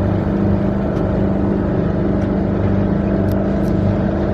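Sailboat's engine running at a steady speed under way, a continuous low drone with an even throb.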